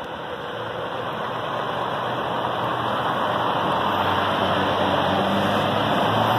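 Scania R450 articulated lorry's six-cylinder diesel engine pulling away slowly and passing close by, its engine note and rumble growing steadily louder as it nears.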